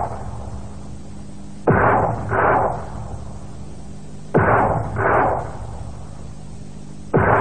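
Horror-drama sound effect: pairs of sudden heavy thuds, the two about half a second apart, repeating every two and a half to three seconds over a steady low hum.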